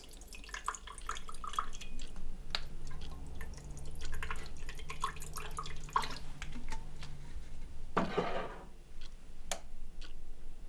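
Liquid dripping, with many small clicks and light glass clinks, and a short louder splash of liquid about eight seconds in.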